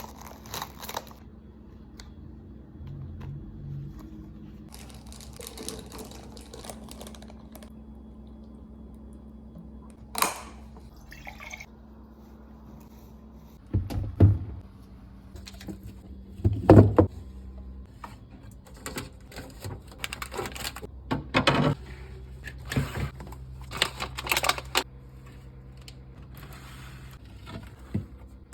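Food containers and jars being handled and set down in a fridge: scattered knocks, clicks and clinks, the loudest around the middle, over a steady low hum.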